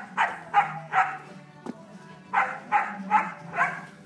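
A dog barking in quick runs: three barks, a pause of about a second, then four more.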